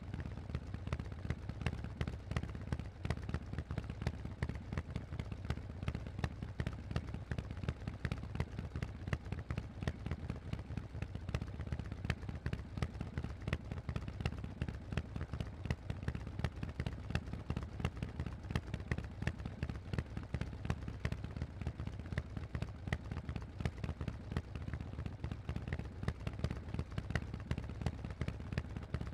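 Harley-Davidson Forty-Eight's air-cooled 1200 cc V-twin running steadily through aftermarket Vance & Hines exhaust pipes, a rapid, even train of exhaust pulses with no big change in revs.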